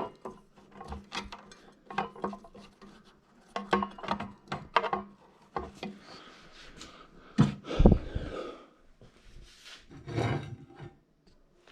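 Festool TS75 track saw being handled by hand while a diamond blade is fitted and checked: irregular clicks and knocks with some rubbing, and a heavier thump about eight seconds in.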